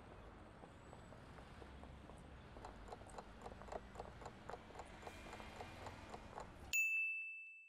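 Countdown-timer sound effect: quick clock ticks, about four a second, over a faint steady hiss, ending near the end in a single bright bell ding that rings out, marking time up.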